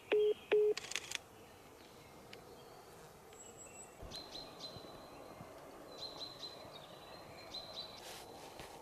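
Two short, loud beeps in quick succession at the start, then repeated high bird chirps over a quiet outdoor background.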